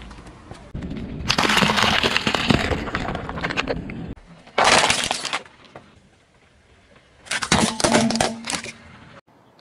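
Car tyre rolling over and crushing objects on asphalt: crunching and sharp cracking in three separate bursts, a long one starting about a second in, a short loud one near the middle, and another near the end.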